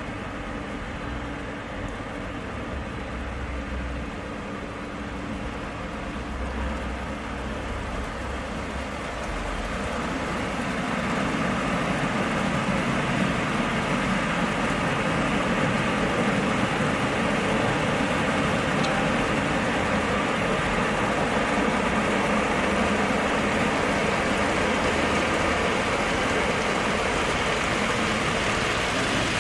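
Automatic car wash machine running, heard from inside the car: a low mechanical rumble, then a steady rush of water spraying and drumming on the car body that grows louder about ten seconds in.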